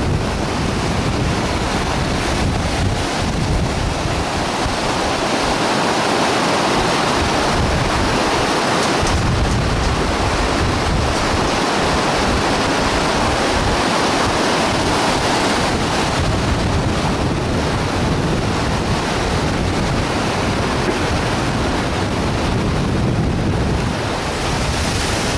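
Fast mountain stream rushing over rocks in white-water rapids just below a footbridge: a loud, steady rush of water with no break.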